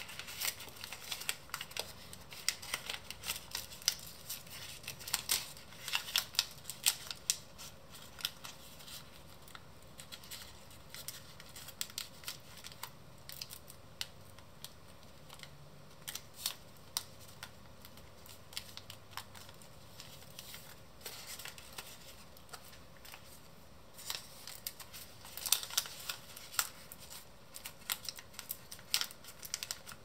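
Paper crackling and rustling as hands fold and crease an origami model, in quick clusters of sharp crackles. They are busiest at the start and near the end, and sparser in the middle.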